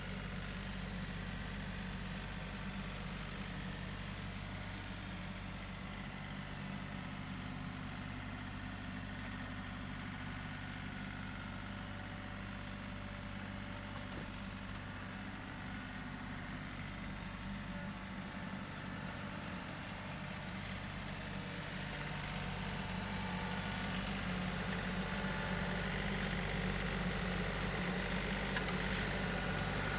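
Tractor engine running steadily, getting a little louder over the last several seconds.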